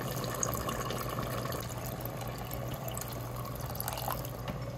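Water pouring steadily in a thin stream into a multicooker bowl, splashing onto rice and liquid as the bowl fills.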